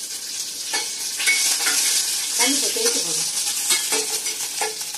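Chillies sizzling as they fry in hot oil in a stainless-steel kadai for the tempering of a rasam. A steel ladle stirs and scrapes against the pan in short clicks.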